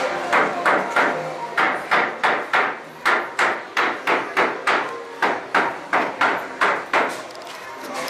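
Hammer blows from construction work: a steady run of strikes about three a second, with a couple of brief pauses, stopping about seven seconds in.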